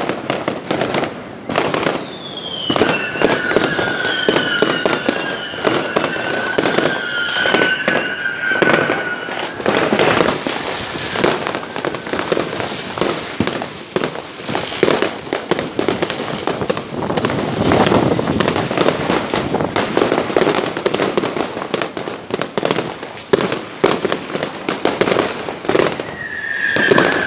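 Fireworks going off in a dense, continuous barrage of crackling bangs and pops. Whistles glide slightly downward over them from about two to nine seconds in, and another comes briefly near the end.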